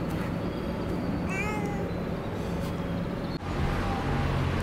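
Cat meowing once, a short call rising and then falling in pitch, about a second and a half in. A steady low hum of street traffic takes over near the end.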